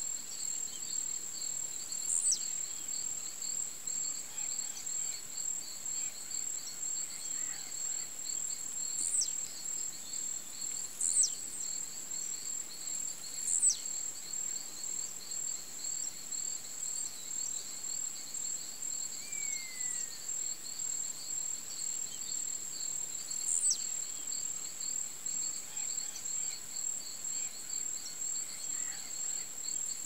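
Short, sharp, down-slurred buzzy notes of a blue-black grassquit's song, given about six times at irregular gaps of a few seconds, over a steady, high, pulsing insect trill that runs on without a break.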